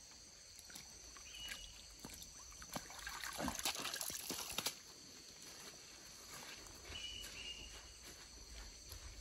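Water sloshing and dripping as a soaked cloth bag is dipped into and lifted out of a shallow stream, loudest and splashiest about three to four and a half seconds in, with a few small knocks.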